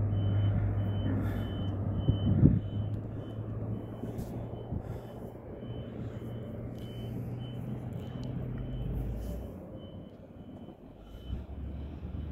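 Heavy construction vehicles running with a steady low engine hum, and a faint high beep repeating at an even pace like a reversing alarm. The hum dies away about nine seconds in.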